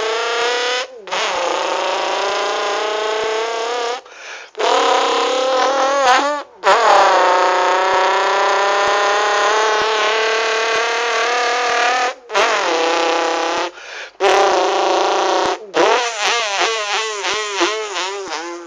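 A person imitating a car engine with the mouth: long buzzing engine tones that glide up in pitch like a car revving and shifting, broken by about six short pauses for breath. Near the end the pitch wobbles rapidly up and down.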